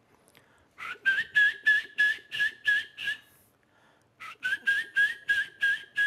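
A man imitating a turkey's gobble with his mouth: two runs of rapid, whistle-like warbling notes, about four a second, with a short pause between them.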